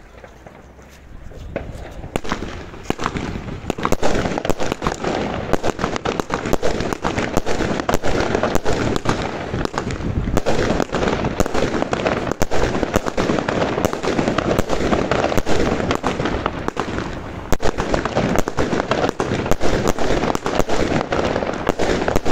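Fan-shaped firework battery firing a rapid, unbroken run of shots and bangs, many a second, starting about two seconds in and keeping up for about twenty seconds.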